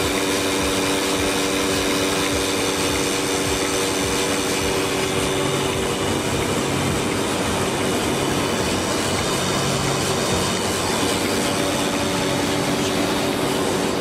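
Portable bucket milking machine's vacuum pump running steadily as it milks a cow, a constant even hum with no change in pitch or level.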